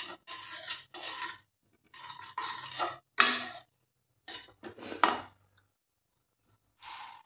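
Metal spoon scraping and stirring dry sesame seeds around a black non-stick pan, in a series of short strokes with brief pauses between them, the seeds rustling against the pan.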